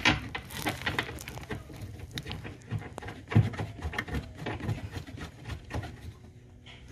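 Hands working plastic tail-light fittings and trim: an irregular run of small clicks, taps and knocks, the loudest about three and a half seconds in.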